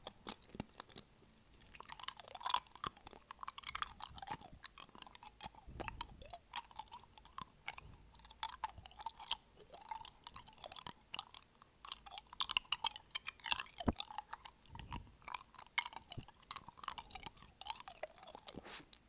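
Mouth sounds close to an earphone's inline microphone: teeth clicking and chewing in a rapid, irregular stream of sharp clicks, after a short pause at the start.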